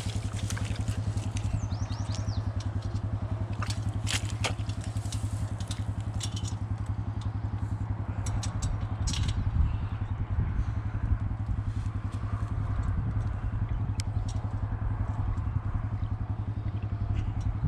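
Side-by-side utility vehicle's engine idling steadily, with a few sharp clicks and clinks over it.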